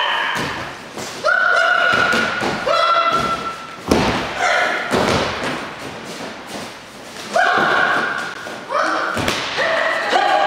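Heavy thuds of bodies landing on gym wrestling mats during throws. Between them come several loud held pitched sounds, each about a second long.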